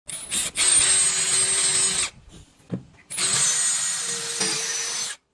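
Handheld power tool working wood, running in two bursts of about one and a half and two seconds with a short pause between, a high whine over a hiss.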